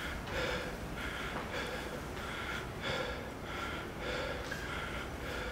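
A man panting hard, out of breath after exertion, with quick, even breaths about one and a half a second.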